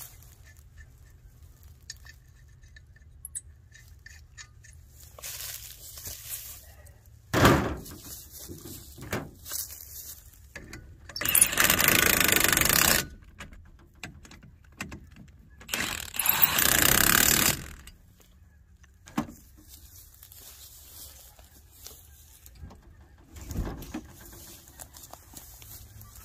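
A power impact wrench running lug nuts onto a wheel in two loud bursts of about two seconds each, a few seconds apart, after a single sharp metal knock.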